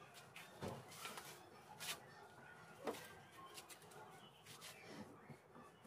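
Near silence: faint room tone with a few faint, scattered short clicks.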